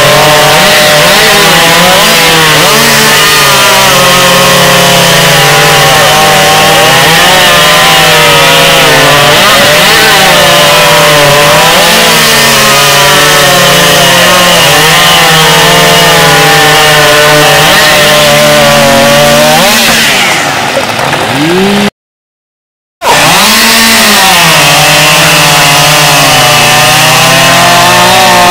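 Chainsaw running loud at high revs, its pitch dipping and recovering as it works under load in a cut. About 20 s in the revs fall away, then about a second of dead silence, then the saw revs up again.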